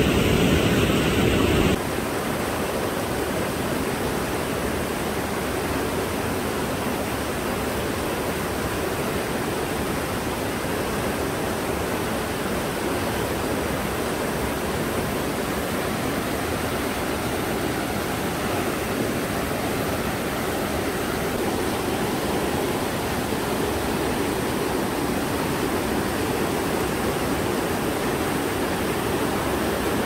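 Mountain stream rushing over rock ledges and small cascades: a steady, even rush of water. It is louder for the first couple of seconds, then steps down suddenly to a slightly softer rush.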